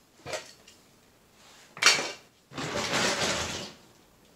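Hard plastic action figures and toy parts clattering as they are handled and dropped, with a small click early and a sharper knock just before two seconds in, then about a second of rummaging noise through a bag of toys.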